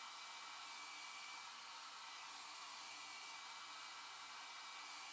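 Handheld hair dryer running steadily, an even hiss of blown air.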